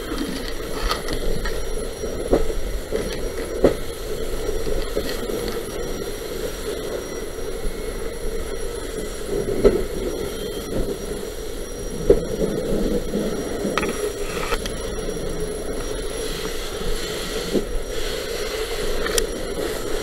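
Fire hose nozzle spraying a water stream into a burning structure: a steady rushing hiss, with a few sharp knocks scattered through.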